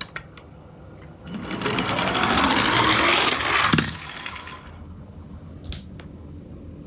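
Die-cast toy garbage truck rolling down a wooden slope, its small wheels whirring louder as it picks up speed, with a sharp knock about four seconds in, after which the sound fades.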